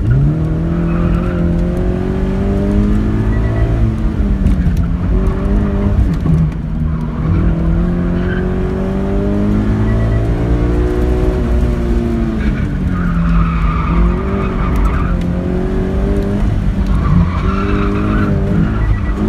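Scion FR-S's flat-four engine, heard from inside the cabin, revving up and down as the car is driven hard through a cone course. The tyres squeal through the turns, loudest a little past halfway and again near the end.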